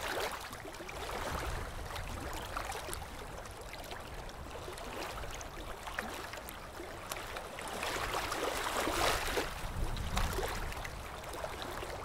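Ocean surf: waves washing in and breaking on a beach, with a louder surge about eight to ten seconds in.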